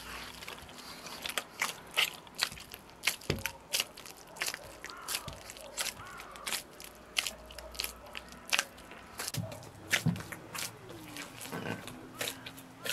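Hands kneading soft, wet bread dough in an aluminium bowl: irregular sticky squelches, slaps and clicks, several a second.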